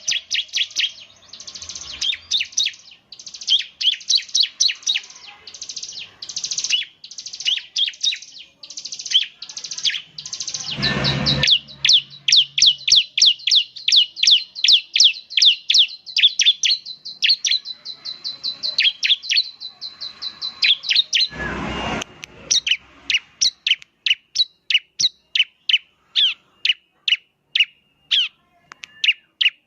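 Bar-winged prinia (ciblek) singing in fast runs of sharp, repeated high chirps, several a second: the rapid 'nembak' style of song. A steady high whistle sounds beneath the notes through the middle, and toward the end the song thins to spaced single chirps. Two brief thumps break in, about a third and two-thirds of the way through.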